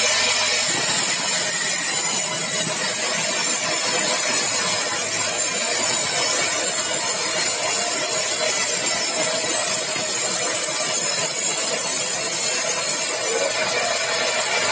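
Sawmill saw cutting steadily through a large log of dry, hard bengkirai (balau) wood.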